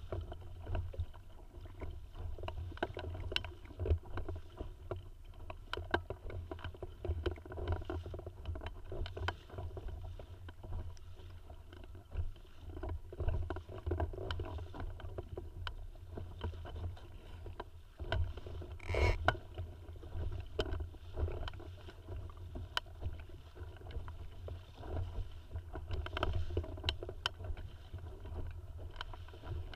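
Water splashing and lapping against the hull of a small sailing dinghy under way, over a constant low rumble. Small uneven knocks come throughout, with one sharper splash or knock about 19 seconds in.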